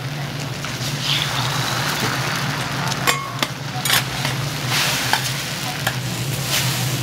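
Food sizzling on a hot iron teppan griddle, a steady hiss over a low hum, with several short sharp metal clicks and scrapes of utensils on the griddle in the second half.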